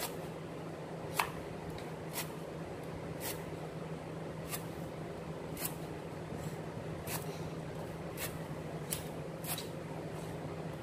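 Kitchen knife slicing lemongrass stalks on a wooden chopping board: a short, crisp chop about once a second, over a steady low hum.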